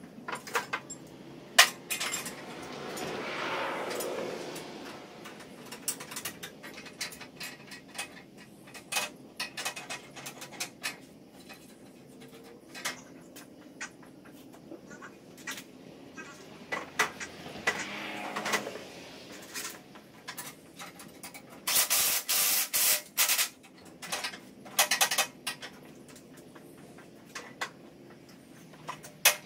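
Scattered metallic clinks, knocks and clatter as hand tools and the aerator's steel parts are handled, with a run of rapid sharp bursts a little past two-thirds of the way through.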